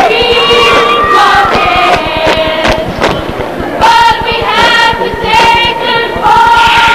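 A group of female voices singing in chorus, loud, in phrases of held notes with a quieter stretch in the middle.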